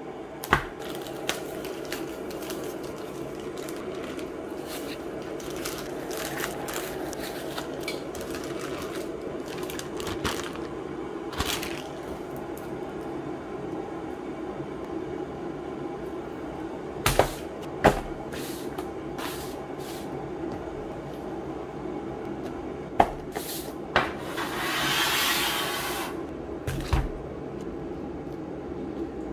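Plastic food packaging being handled: scattered sharp clicks and taps of plastic trays and film, with one longer crinkling rustle near the end, over a steady background hum.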